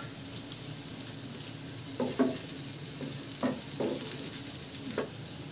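Chopped onion, garlic and green chillies sizzling steadily in hot mustard oil in a frying pan, with a spatula stirring them and knocking against the pan in about six short strokes in the second half.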